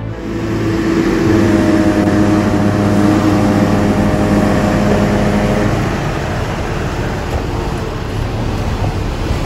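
Diesel semi-truck running close by, with a loud steady rush of noise. A steady hum of several tones sits under it and stops about six seconds in.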